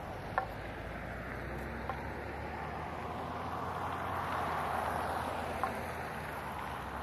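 Road traffic: a steady hiss of tyres and engines that swells as a pickup truck drives past, about four to five seconds in, with a few short clicks.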